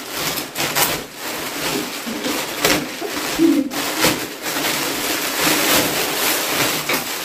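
Plastic packaging and wrapping paper rustling and crinkling as a parcel is opened and unpacked by hand, in irregular crackly bursts.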